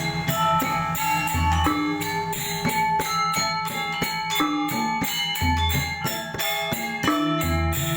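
A Balinese gamelan playing a tabuh. Bronze metallophones ring out a fast pattern over frequent sharp percussive strokes, with a deep low tone about a second and a half in and again about five and a half seconds in.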